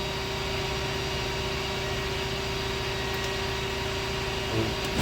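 Baileigh BP-3305 CNC press brake's hydraulic pump running at idle: a steady hum with one constant tone, and a brief knock near the end.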